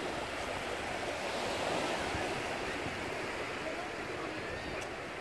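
Small sea waves washing on the beach, a steady rushing wash, with a few faint gull calls now and then.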